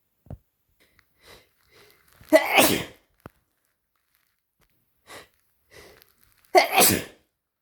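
A person with a cold sneezing twice, about four seconds apart, with fainter short sounds just before each sneeze.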